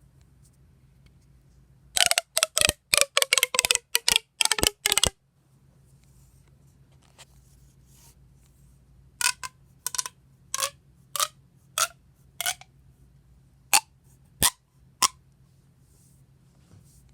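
Sharp, short pops: a quick run of about a dozen close together, then after a pause about nine more at irregular intervals of roughly half a second to a second.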